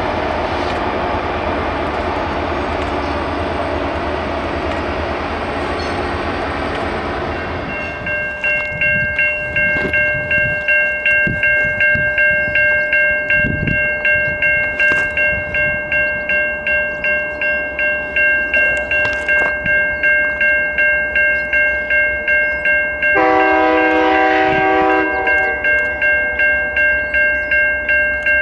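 A passing train rushes for the first eight seconds or so. Then a railroad grade-crossing bell rings steadily, about twice a second. About twenty-three seconds in, the horn of the distant approaching CN freight's locomotive sounds one long blast of two and a half seconds.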